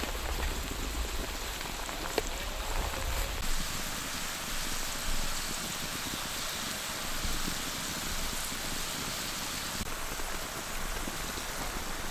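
Portobello mushrooms frying in a cast iron pan over a campfire, a steady sizzle, with a single click about two seconds in.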